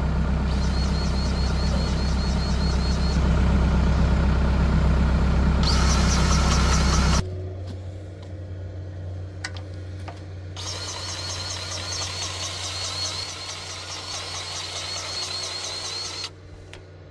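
An engine runs steadily while a cordless grease gun's motor whines in spurts as its trigger is squeezed. About seven seconds in, the engine sound drops away to a quieter hum with a few clicks, and the grease gun runs again for several seconds.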